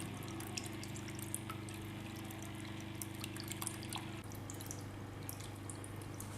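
Small bamboo tabletop fountain running: water trickling and dripping steadily from the bamboo spout. Under it is a low, steady hum from the mini pump, which partly drops away about four seconds in.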